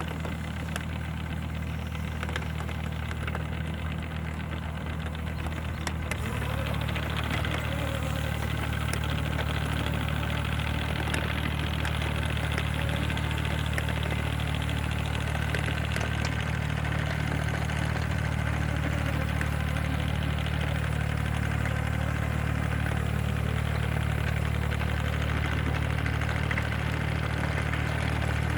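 Kubota mini excavator's diesel engine running steadily, getting a little louder about six seconds in.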